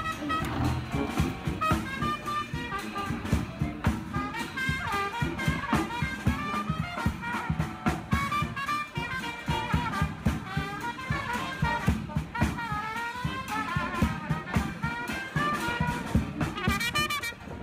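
Background music: upbeat jazz with a brass melody over a steady beat.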